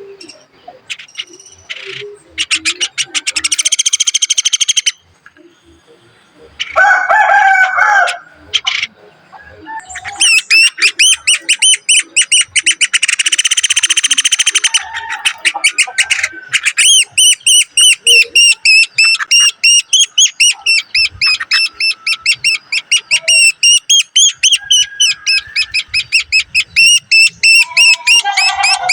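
Woodpecker chicks begging at the nest as they are fed: loud, buzzy trains of high-pitched calls, then a long run of rapid, evenly repeated high chirps. A lower, harsher call breaks in about seven seconds in.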